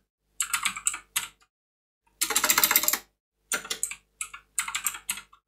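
Computer keyboard typing in short bursts of keystrokes, with a fast run of keys about two seconds in.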